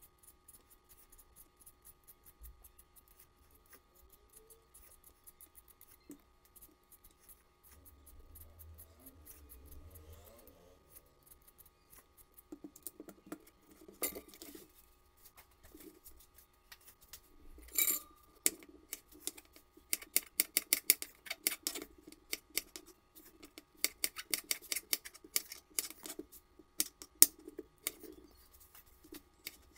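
A vegetable peeler scrapes faintly over potato skins, then a kitchen knife cuts potatoes into cubes on a plastic cutting board: rapid, irregular knocks of the blade on the board that grow louder and denser in the second half.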